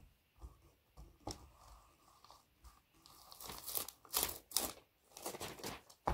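Two graphite pencils scraping hard across a large sheet of paper, with the paper rustling and crinkling as it shifts. Scattered strokes at first, then a denser, louder run of scratching from about three seconds in.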